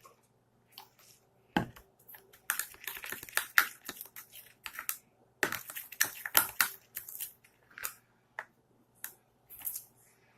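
Baking soda being mixed into a runny soap-and-sugar slime mixture in a container: quick, irregular scraping and gritty crunching strokes, in two busy spells with sparse strokes at the start and near the end.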